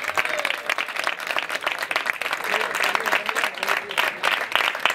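Audience applauding: many people clapping at once, a dense, steady patter of claps.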